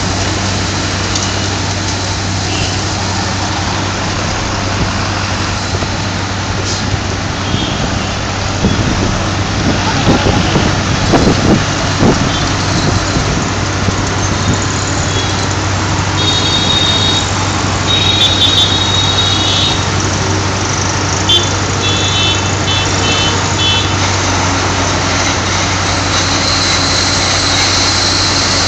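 Speedcraft spray-injection pothole repairing machine at work: its engine runs steadily under a loud rushing hiss from the boom nozzle blasting emulsion and stone chippings onto the road. The spray gets louder and rougher about ten seconds in, and a few short high beeps come through near the middle.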